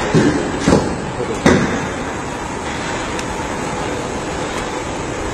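Car assembly-line factory noise: a steady hum of machinery and conveyors, with three heavy clunks in the first second and a half.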